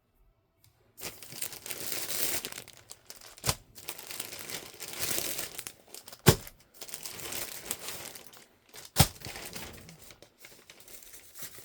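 Packaging crinkling and tearing as an order of T-shirts is unwrapped by hand, in rustling stretches broken by three sharp snaps a few seconds apart.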